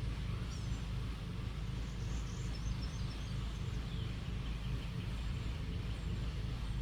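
Steady low background rumble, with faint high bird chirps in the first half.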